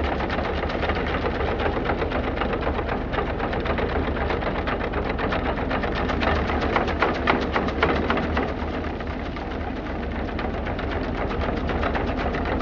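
Double-action sickle bar of a Ventrac boom mower clattering rapidly as its reciprocating knives cut through a hedge's leafy branches. The tractor's engine runs steadily underneath.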